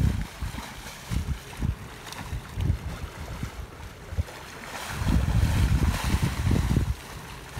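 Wind gusting on the microphone over sea water washing against a ship's bow. About five seconds in, a louder rush of splashing water lasting about two seconds as a sea lion heaves itself out of the water onto the bulbous bow.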